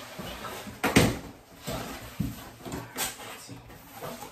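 Cardboard shipping box being handled and opened by hand: a few sharp knocks and soft thuds, the loudest about a second in and another about three seconds in.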